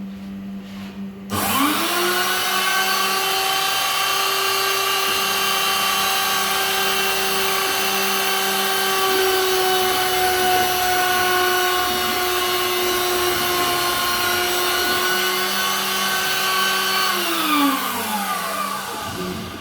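CNC router spindle spinning up about a second in with a rising whine, then running steady while the bit cuts a circle into a plastic bucket lid. Near the end it winds down, the whine falling in pitch. A low steady hum is there before the spindle starts.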